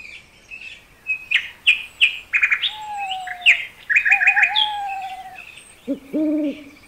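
Birdsong: many short, quick high chirps and a few whistled calls, then an owl hooting once, low and short, near the end.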